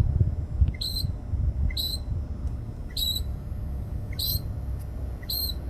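A songbird repeating a short two-part call about once a second, five times: a faint low note, then a brighter, higher note. Wind rumbles steadily on the microphone underneath.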